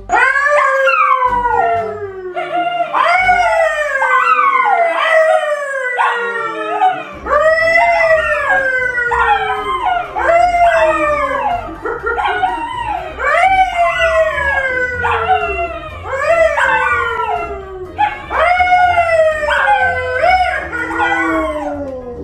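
A yellow Labrador and a brown poodle howling together with a man, a long run of overlapping howls that each slide down in pitch, about one a second.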